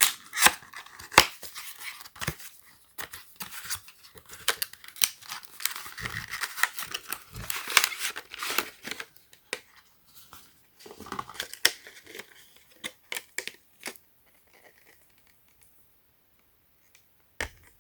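Packaging being opened by hand: irregular rustling, crinkling and tearing with sharp clicks and snaps, dying away about fourteen seconds in, with a single click near the end.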